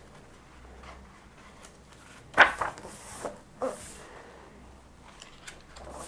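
A hardcover comic book being handled, with a few short rustles and knocks about two and a half to four seconds in and faint ticks after.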